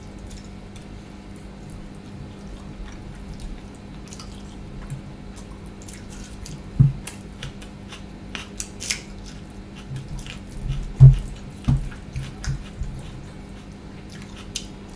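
Wet squishing and chewing as rice mixed with fish curry is kneaded by hand and eaten, with many small wet clicks. Two louder dull thumps come about seven and eleven seconds in.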